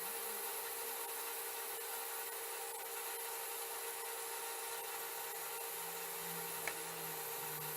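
Steady hiss with faint scratching, typical of a hot butane soldering iron tip being drawn across wood for wood burning.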